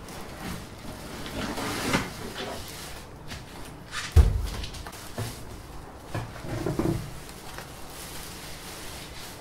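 Unpacking noises: a cardboard shipping box scraping and rustling as it is pulled off a plastic-wrapped foam block, then a single deep thump about four seconds in as the empty box is dropped to the floor. A few seconds later, a foam sheet and plastic wrap rustle and knock as they are lifted out.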